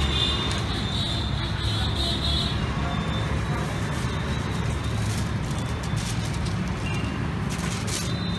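Steady street traffic noise with a low rumble of passing vehicles. A short crinkle near the end comes from aluminium foil being handled.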